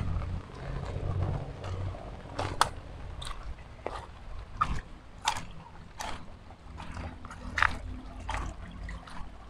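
Footsteps crunching irregularly on wet stones and leaf litter along a shallow, rocky stream bed, with a low rumble of wind on the microphone underneath.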